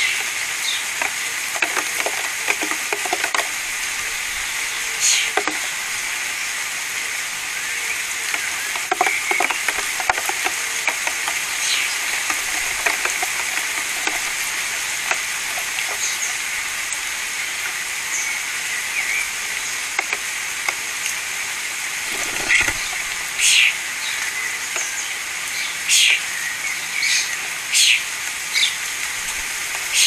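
European starlings feeding at a hanging garden bird feeder: scattered clicks and taps over a steady hiss, with several short loud bursts in the second half.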